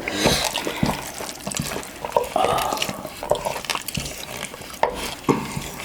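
Spoon stirring and scraping through saucy, oiled rice in a bowl, with a wet squelch and repeated clicks of the spoon against the bowl.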